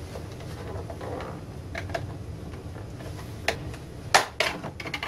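Plastic rear cover of an LCD monitor being pried off by hand: a few sharp plastic clicks and snaps, the loudest about four seconds in.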